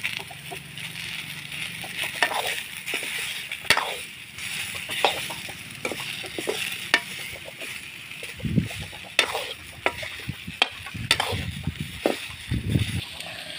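Potatoes and dry fish frying and sizzling in a metal wok (kadai), with a metal ladle stirring and clicking against the pan many times. A few low thumps come in the second half.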